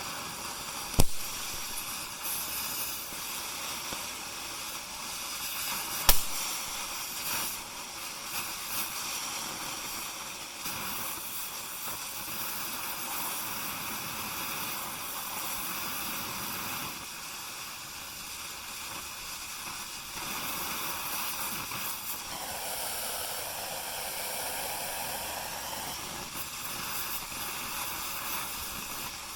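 Oxy-fuel cutting torch hissing steadily, with two sharp cracks about one and six seconds in; the hiss changes tone for a few seconds near the end.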